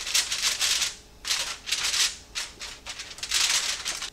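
Aluminum foil crinkling in three bursts as it is peeled off a glass baking dish.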